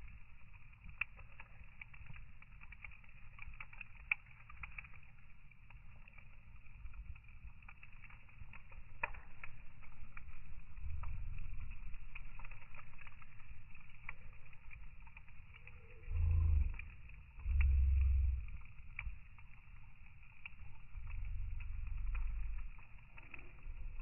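Wood fire burning in a metal fire bowl: scattered crackles and pops from the burning logs, with heavy low rumbles twice about two-thirds of the way through and again building near the end.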